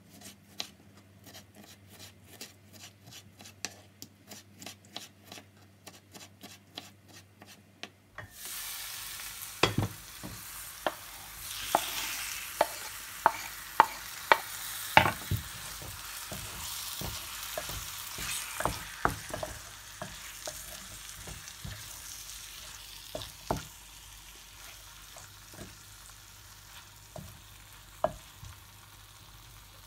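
A kitchen knife slicing a tomato on a bamboo cutting board in steady cuts, about two or three a second. About eight seconds in, chopped tomato scraped into the hot tagine starts sizzling, with a wooden spoon knocking and scraping against the pot.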